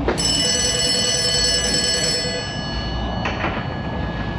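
Shop telephone ringing: a single bell-like ring that starts sharply and dies away over two to three seconds.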